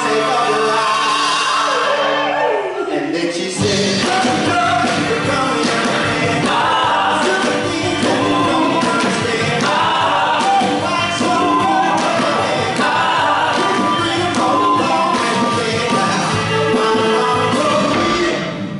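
Motown-style song performed live: a group of singers with a band. For the first few seconds held vocal notes ring out over a thin accompaniment, then bass and drums come in about three and a half seconds in and the full band plays on under the singing.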